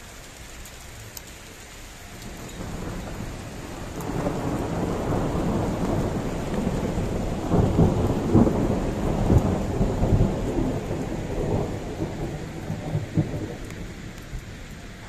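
Thunder rumbling over steady rain: the rumble builds from about two seconds in to a loud peak with sharp cracks near the middle, then rolls away toward the end.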